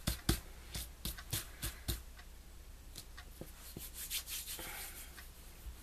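Fingertips rubbing together and picking to get sticky craft glue off them: a quick run of short scratchy rubs and clicks over the first two seconds, then a few sparser ones.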